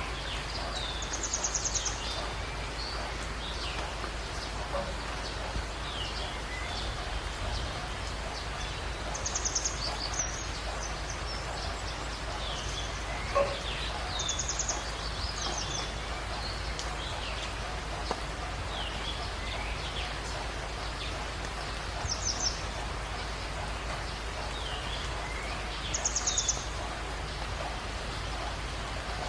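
Jungle birds calling over a steady hiss of rain. One bird gives a short, rapid high trill every four to eight seconds, five times in all, and others add scattered short, falling chirps.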